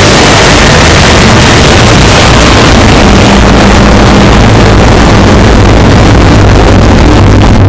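Loud, heavily clipped noise sound effect: a dense rushing hiss across all pitches with a low steady hum underneath.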